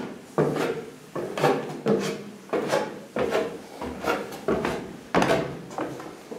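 Footsteps on wooden stair treads and plank floorboards, each step a knock with a short rasp of the boards, about one and a half to two steps a second.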